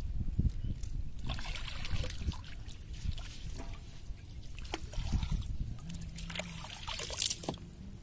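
Water trickling and dripping off a wet cast net as it is hauled up out of the water by hand, with louder splashy pours about two seconds in and again near the end.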